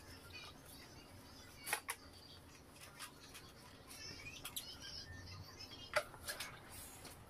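Faint squeaks and light knocks of a sponge mop being pushed over a tiled floor, with a few short chirp-like squeaks about four to five seconds in.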